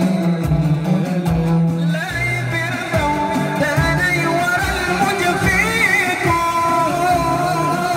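Men singing into microphones through a sound system: a lead voice carries a wavering melody over steady low held notes.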